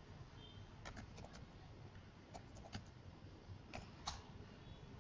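Faint keystrokes on a computer keyboard as a word is typed: about eight sharp clicks at an uneven pace over low hiss.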